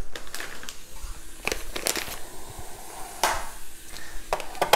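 A bag of coffee beans being handled: crinkling and rustling with a scattering of sharp clicks and knocks.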